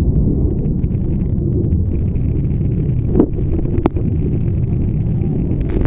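Jet airliner engines at takeoff thrust heard from the beach: a loud, steady low rumble with wind blasting the microphone, and two sharp knocks a little over three seconds in.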